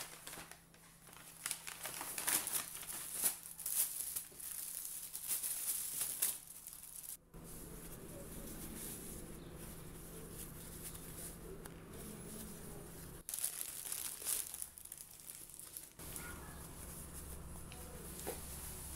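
Brown paper mailer bag rustling in bursts as it is handled and opened, stopping abruptly about seven seconds in. After that, quieter handling noise of foam pieces and their packaging over a steady low hum, with a shorter burst of rustling later on.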